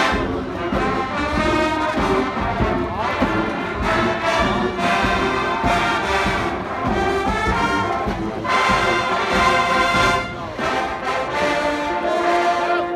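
A marching band playing a swing tune, with brass to the fore and many held chords.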